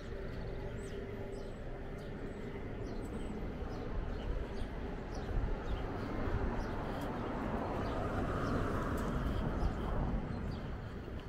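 Birds chirping now and then over a steady low outdoor rumble, with a car passing on the street, swelling and fading about eight to ten seconds in.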